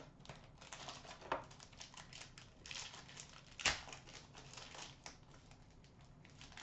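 Foil wrapper of a hockey trading-card pack crinkling and being torn open by hand: a run of irregular crackles and rustles, with one sharper crackle a little past halfway.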